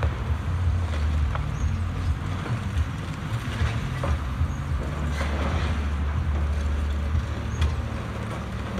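Caterpillar excavator's diesel engine running steadily as it tears down a building, with scattered crunching, cracking and a few sharp knocks of breaking debris.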